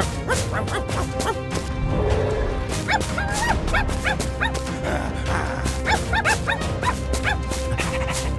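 Background music with a small dog yipping and barking in quick, high-pitched bursts, again and again.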